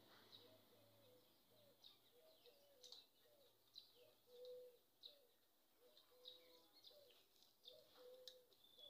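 Faint birdsong: quick high chirps several times a second, over a row of short, lower cooing notes, with one or two faint clicks.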